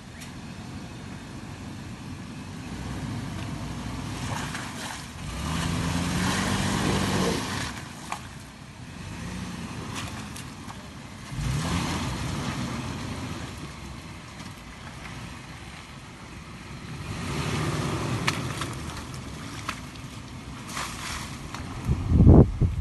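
Toyota Land Cruiser Prado 120's engine revving up and dropping back several times as it tries to climb out of deep ruts, with a louder, sharper rev near the end.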